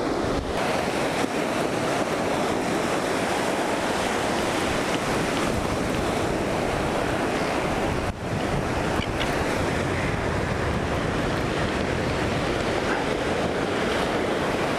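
Ocean surf breaking on the beach, a steady wash of waves mixed with wind buffeting the microphone, with a brief dip about eight seconds in.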